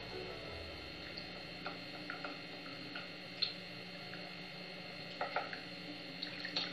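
Plastic spoon stirring a thick paste in a small glass bowl, tapping the glass with scattered light ticks over a faint steady hum.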